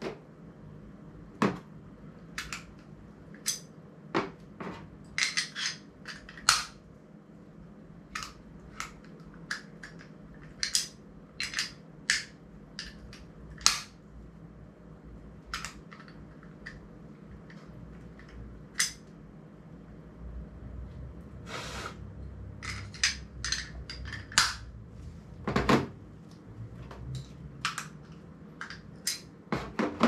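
Small camera quick-release clamp and plate parts being handled, fitted together and set down on a tabletop, making a few dozen irregular sharp clicks and clacks, with a short scrape about two-thirds of the way through.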